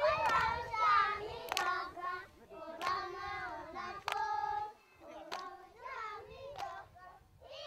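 A group of young children singing together, with hand claps about once every second and a bit keeping the beat. Loudest in the first second or so, then softer.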